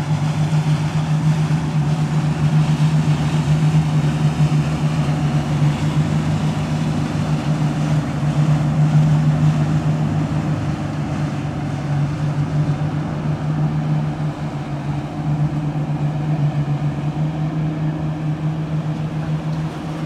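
Motorboat engines running steadily as a boat passes through the inlet: a constant low drone.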